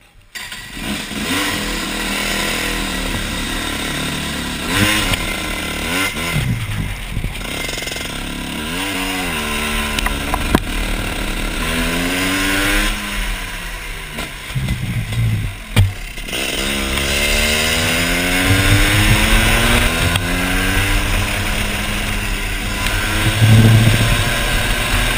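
125 cc two-stroke kart engine heard close from onboard, revving up and down in short rising and falling sweeps as the kart pulls away, then accelerating in longer rising sweeps from about halfway through.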